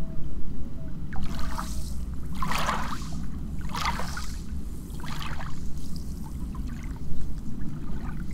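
Water sloshing and lapping in swells about once a second, over a steady low rumble.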